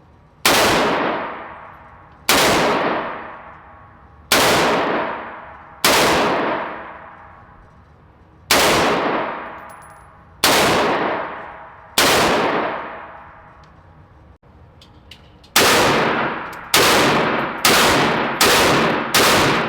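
Gunshots fired one at a time, twelve in all, each followed by a ringing echo that fades over about a second. The first seven come every couple of seconds; after a pause, the last five come faster, about one a second.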